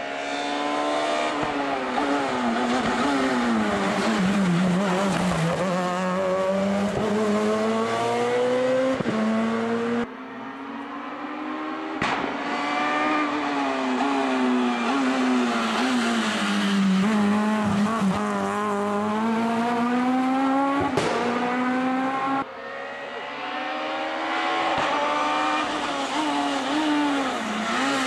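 Rally cars on a special stage, one after another, engines revving hard with the pitch climbing and falling through gear changes and braking. The sound breaks off and starts again abruptly twice, between the cars.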